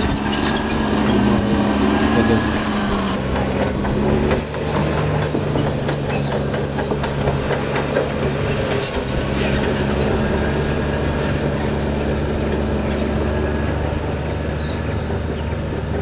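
Caterpillar D6R XL bulldozer's diesel engine running under load as the crawler moves with its blade in the dirt, engine pitch wavering for the first few seconds. Steel tracks clatter throughout, with a high steady squeal from the running gear.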